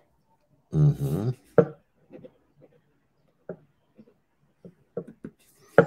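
A brief murmured vocal sound about a second in, then scattered light taps and scratches of a pencil writing on paper.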